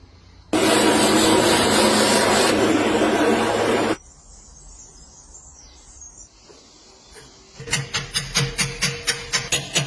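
A loud, even rushing noise for about three and a half seconds, starting and stopping abruptly, then a quiet stretch, then background music with a steady beat of about three strokes a second starting near the end.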